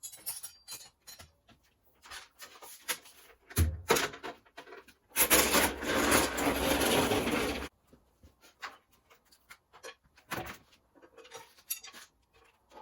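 Workshop handling noises: scattered knocks and clunks, with a steady rasping scrape lasting about two and a half seconds around the middle.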